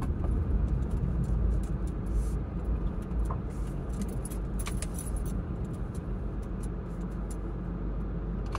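Car cabin noise while driving: a steady low rumble of road and engine, with a few faint light clicks and rattles.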